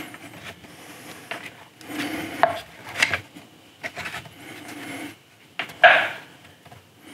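Hard model kit parts rubbing, scraping and clicking against each other as they are pushed and fitted together by hand, with a sharper knock just before six seconds in.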